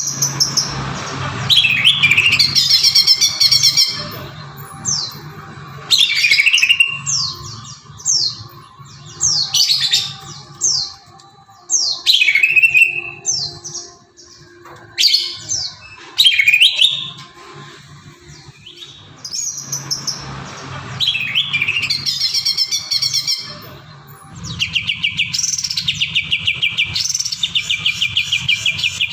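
Green leafbird (cucak ijo) singing loudly in varied phrases of sweeping whistles with short pauses between them. About three-quarters of the way through, the song turns into a fast, unbroken run of rapid repeated notes.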